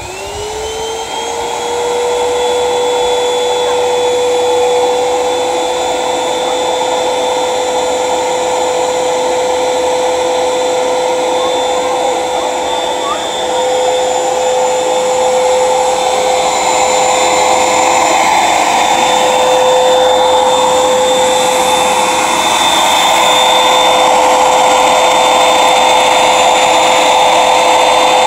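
Eureka bagless upright vacuum's motor spinning up with a rising whine, then running steadily at full speed while it sucks water up its hose from a bucket.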